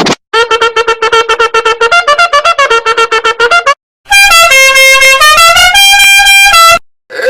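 Meme sound effects: a rapid staccato run of short pitched notes, then after a brief gap a loud blaring horn-like tune of held notes stepping up and down in pitch.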